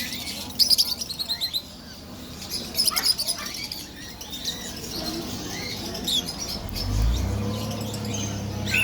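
Parrots chirping: a quick run of high chirps about a second in, then scattered calls. A low steady hum comes in near the end.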